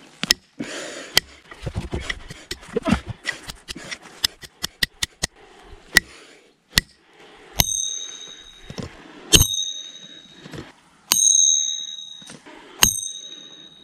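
Repeated hard strikes on the spine of a Victorinox Venture knife's Sandvik 14C28N steel blade during a break test. A quick run of irregular knocks comes first. In the second half, four heavy blows about every second and a half each leave the steel ringing with a high bell-like tone.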